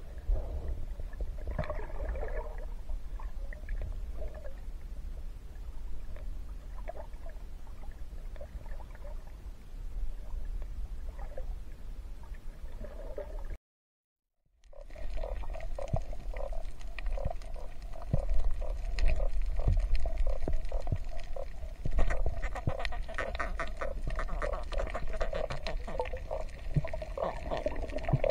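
Muffled underwater sound picked up through a camera housing: a steady low rumble of water movement with many scattered sharp clicks. It cuts out to silence for about a second midway, then returns busier, with denser clicking.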